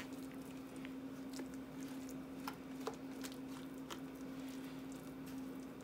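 Thick mashed potatoes being scraped out of a stainless steel saucepan into a serving bowl: faint soft squishing with a few light clicks, over a steady hum.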